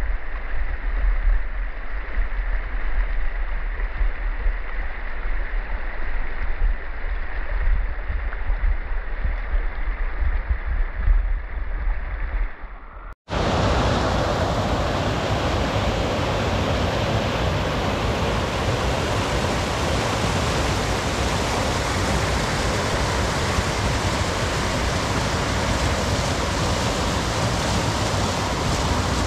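Steady rush of flowing water from a mountain stream. For the first part it sounds muffled, over a heavy low rumble. About thirteen seconds in the sound cuts off abruptly and comes back as a brighter, fuller, louder rush of water.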